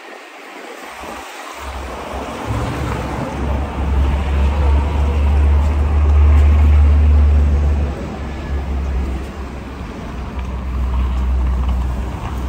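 Wind buffeting the microphone with a deep rumble over the noise of city street traffic. The rumble is absent at first, comes in after a second or two, is strongest around the middle, then eases and picks up again near the end.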